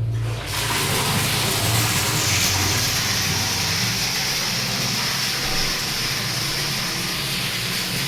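Water running from ablution taps, a steady rushing hiss that comes in about half a second in and grows brighter about two seconds in.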